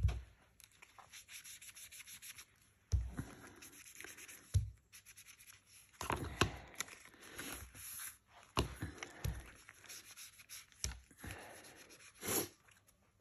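Foam ink-blending tool rubbed over paper edges in short, soft scuffing strokes, with several light knocks of the tool and paper against the desk's cutting mat.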